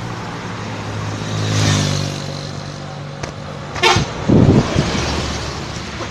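A large bus passing with its engine running and fading, then a sudden burst and a short, loud blast of its horn just past the middle; a brief toot rather than a long telolet melody.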